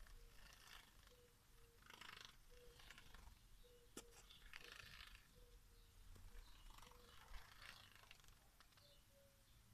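Faint splashing and wing-fluttering of society finches bathing in a shallow water dish, in short irregular bursts about once a second, with a single sharp click about four seconds in.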